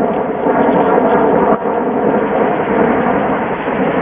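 Loud, steady din of passing road traffic.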